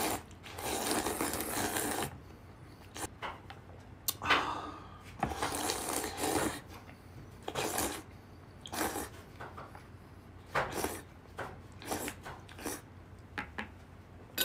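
A man slurping udon noodles from a bowl: two long noisy slurps of about two seconds each, then a string of short slurps.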